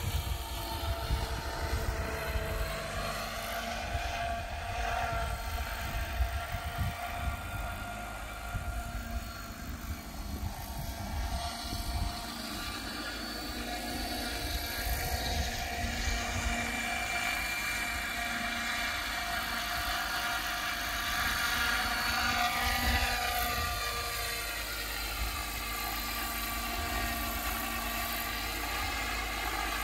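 Align T-Rex 600 radio-controlled helicopter, in an MD500 Defender scale body, flying continuously: a steady rotor whir and drive whine whose pitch rises and falls as it manoeuvres.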